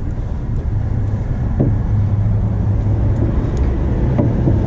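Steady low mechanical rumble with a constant hum, like a motor or engine running, with two faint clicks about a second and a half in and again near the end.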